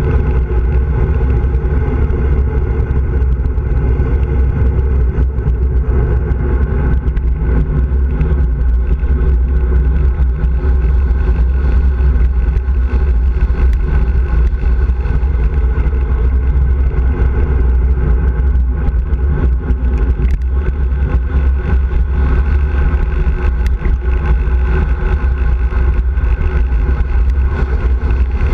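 Wind rushing and buffeting over the microphone of a handlebar-mounted camera on a bicycle descending at speed, a loud steady low rumble, with the hum of tyres rolling on asphalt beneath it.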